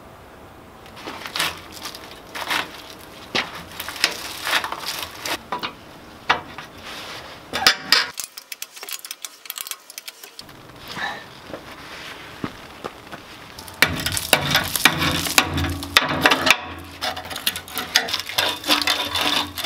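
A string of sharp metal clicks, knocks and scrapes from hand tools working on a rusty steel step bracket under a school bus's rear bumper. The knocks come heavier and closer together in the last several seconds.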